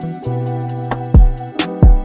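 Background music with a steady beat: sustained instrumental notes over a kick drum and hi-hat pattern.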